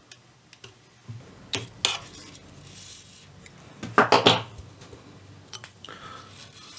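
Small metal clicks and clinks of pointed pliers and fingers handling a dial cord and its tension spring against a steel radio chassis, with the loudest cluster of clinks about four seconds in.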